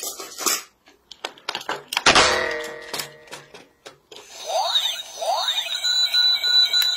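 A AA battery knocked into a toy robot's spring-contact battery compartment with a sharp metallic clang about two seconds in. From about four seconds, the robot's electronic sound effects as it powers on: two rising sweeps, then a steady high electronic tone with a fast pulsing.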